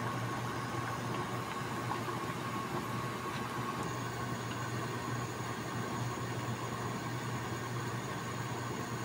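Sweet-cured pork (tocino) boiling vigorously in water in a stainless skillet, a steady bubbling hiss, over a constant low hum.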